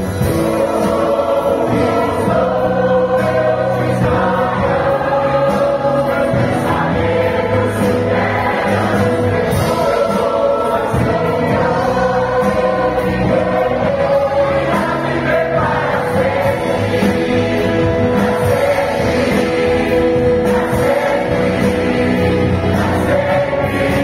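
Large mixed choir of men and women singing a gospel song together over keyboard accompaniment, with a steady bass line underneath.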